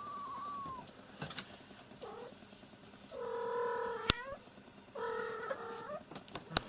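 Cat meowing: a thin high mew near the start, a short call about two seconds in, then two fuller meows about a second long each, a second or so apart. The mother cat is calling to her kitten to coax it down. A single sharp click falls between the two long meows.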